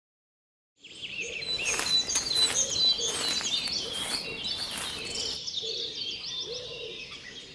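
Birds chirping and twittering in a forest soundscape, many short calls overlapping, starting about a second in. Brief bursts of hiss come through during the first few seconds.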